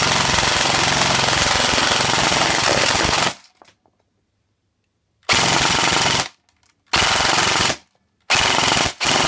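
Electric airsoft AK rifle firing on full auto from a wound flash magazine: one long continuous burst that stops about three seconds in, then after a pause three shorter bursts of about a second each.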